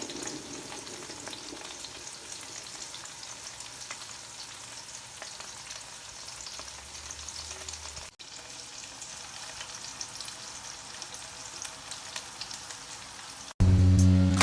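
Food frying in hot cooking oil: a steady sizzle with many small crackles and pops. Music comes in loudly near the end.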